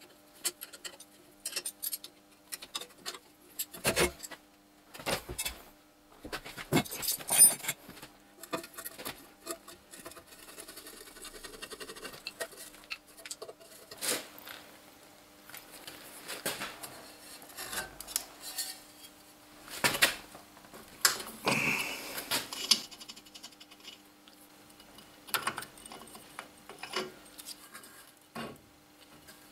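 Steel open-end spanners clinking against nuts and bolts while a bench grinder is unbolted, then its metal wheel guard and grinding wheel are handled and taken off. The sound is a string of scattered metallic clicks and clinks with a few louder knocks.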